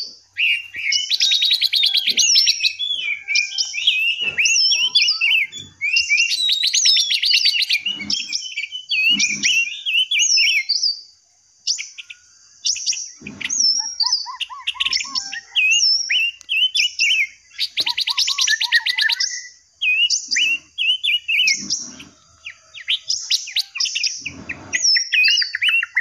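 Several small aviary songbirds singing and chirping: a busy mix of bright whistled phrases and short chirps, with fast rattling trills twice, first near the start and again a little past the middle.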